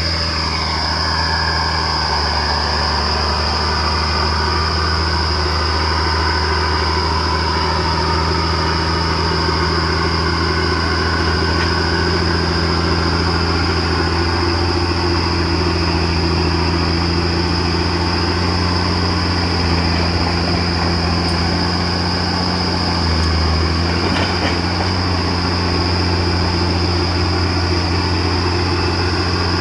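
Komatsu D50A crawler bulldozer's diesel engine running steadily under load, a deep continuous drone with a steady high whine over it. The engine note shifts briefly about three-quarters of the way through.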